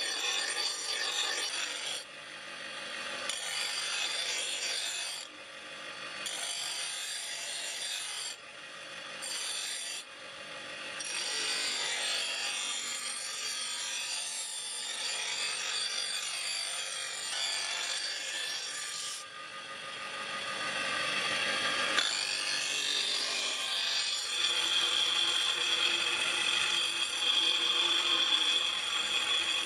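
Bench-grinder wheel grinding a forged steel knife blade: a harsh, rasping grind that drops away briefly a few times as the blade comes off the wheel and goes back on. Near the end a steady high whine rises over the grinding.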